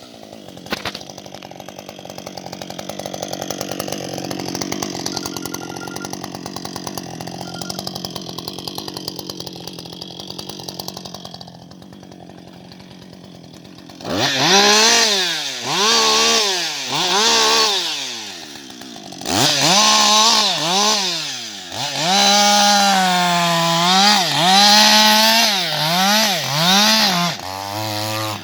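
Husqvarna 560XP two-stroke chainsaw running steadily for about ten seconds, then settling to a quieter idle. From about halfway it is revved up and down again and again in quick throttle blips.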